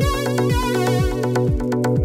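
Electronic dance music: a steady kick drum about twice a second under sustained synth chords and a wavering high synth melody.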